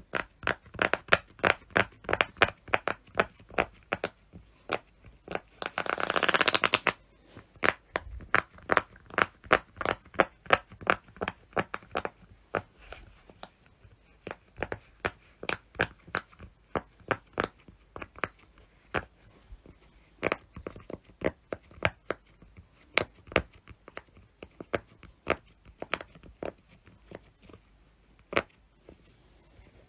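Silicone pop-it fidget toy bubbles being pushed through one after another: a long string of short pops, about two a second. About six seconds in there is a brief buzzy rasp.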